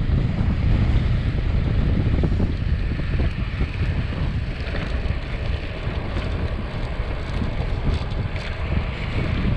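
Wind rushing over the camera's microphone on a fast bicycle descent at around 40 km/h, a loud, steady low rumble with a lighter hiss above it.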